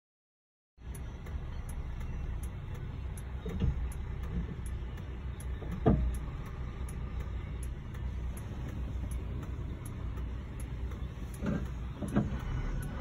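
Silent at first, then the steady low rumble of a car and traffic heard from inside a car's cabin, with a few short dull thumps, the loudest about six seconds in and two more near the end.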